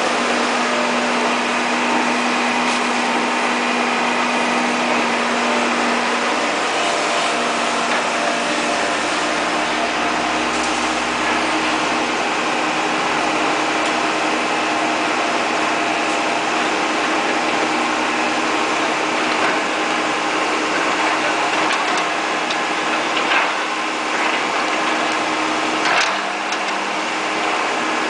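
Caterpillar E240B excavator's diesel engine running steadily under working load, with a couple of brief clanks near the end.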